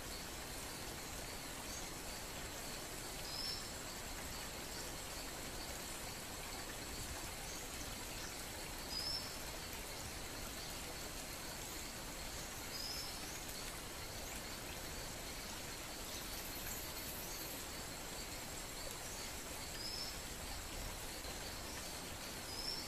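Quiet outdoor ambience: a steady hiss with a faint high, lightly pulsing tone and about five brief high chirps spread through it.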